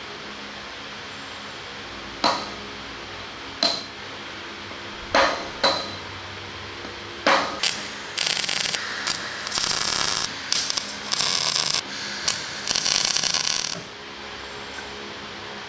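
Hammer blows on steel sprocket hub parts, six sharp ringing knocks as the pieces are tapped into position. Then a welder crackles in several short stop-start bursts over about six seconds, laying tack welds.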